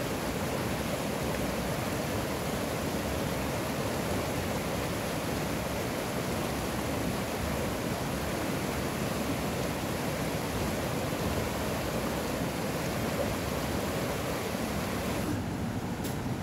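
Steady rush of a small mountain river's flowing water.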